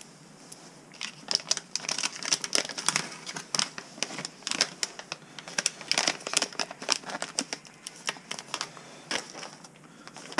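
Thin plastic packaging crinkling as it is handled: a rapid, irregular run of crackles that starts about a second in and dies down near the end.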